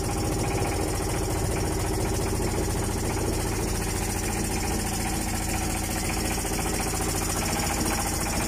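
Engine of a small wooden harbour launch running steadily under way, an even drone with a fast, regular pulse.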